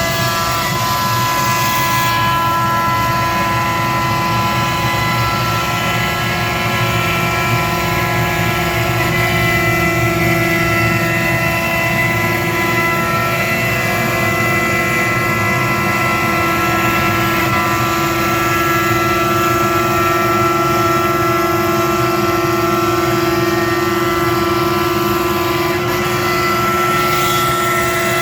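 Avid CNC router's spindle running steadily with a multi-toned whine while its cutter skims the waste board flat.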